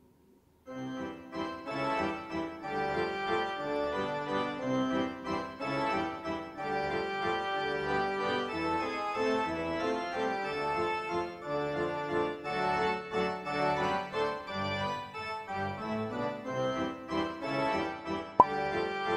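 Background instrumental music of sustained, changing notes, with one sharp click near the end.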